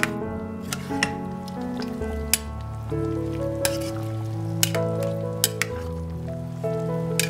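Background music of slow, sustained notes, with a metal ladle clinking against the pot now and then as the stew is stirred.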